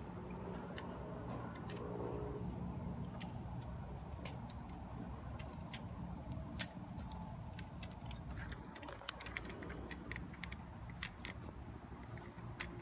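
Scattered small clicks and taps of plastic parts being handled as a tower fan's control circuit board is fitted back into its plastic housing, over a steady low background hum.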